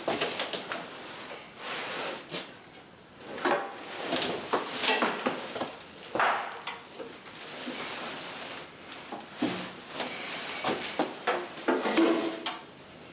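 Irregular knocks, clatters and scraping as cardboard packing and the boxed concrete mixer's parts are shifted and handled by hand.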